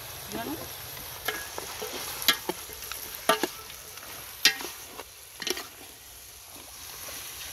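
Metal spoon stirring chopped raw goose in a large aluminium pot, with about seven sharp, irregular clinks and scrapes of the spoon against the pot, over a steady sizzle of the meat frying in oil before the seasoning goes in.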